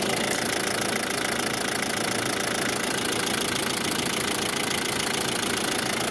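Isuzu Bighorn's 4JG2 intercooled turbo-diesel engine idling steadily with the bonnet open.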